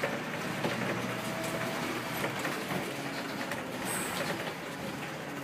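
Leyland National Mark 1 single-deck bus on the move, heard from on board: its diesel engine running steadily under a dense road and body noise, with frequent small clicks and knocks.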